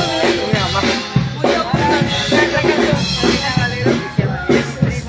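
Live band music with a drum-kit beat and a steady bass line.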